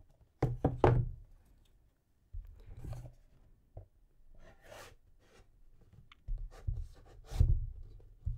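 A hardcover book being slid back into its slipcase and handled: a few quick knocks about half a second in, then the boards rubbing and scraping against the case, with heavier thumps near the end as it seats.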